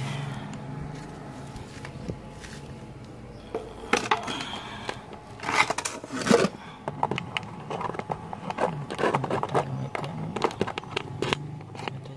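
Stick-welding arc from a Daisung ARC200-MOS inverter welder running at about 50 amps: irregular crackling and popping that starts about three and a half seconds in and goes on, over a steady low hum.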